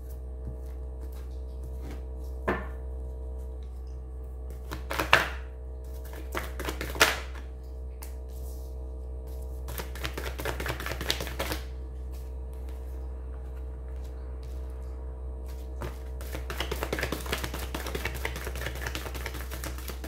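Tarot cards handled on a cloth-covered table: a few sharp knocks as the cut piles of the deck are picked up and set down, then runs of quick small clicks of cards being drawn and laid out, about ten seconds in and again near the end, over a steady hum.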